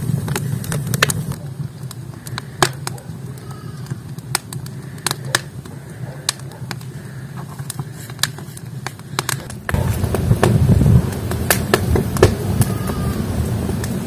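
Wood fire burning in a brick stove, crackling with sharp pops over a low steady rumble that grows louder about ten seconds in.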